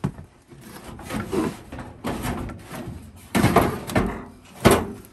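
Sheet-metal body of a Suburban RV propane furnace being worked out of its outer housing by hand: a run of scrapes and clunks, the loudest past the middle and near the end.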